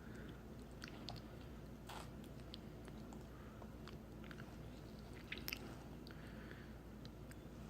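Faint chewing and small mouth clicks of a young child eating a chicken nugget, with scattered light ticks and one sharper click about five and a half seconds in.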